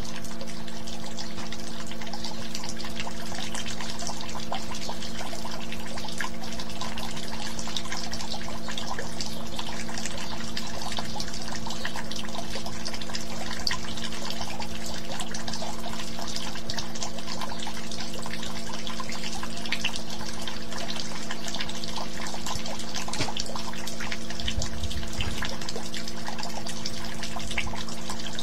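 Steady sound of running, trickling water with a constant low hum beneath it.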